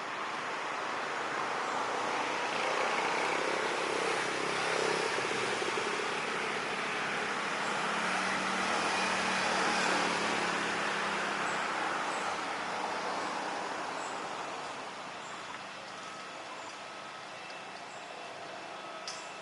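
Aircraft passing overhead: engine noise swells for several seconds, peaks around the middle and fades away, with a few faint bird chirps above it.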